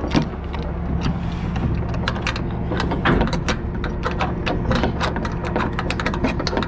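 Rapid, irregular metal clicking and clanking from a semi-trailer's rear swing-door latch hardware being worked open, over a steady low engine hum.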